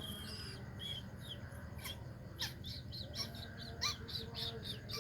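Bird chirping: scattered short high chirps, then from about three seconds in a rapid run of about four chirps a second, with a few sharp down-sweeping calls.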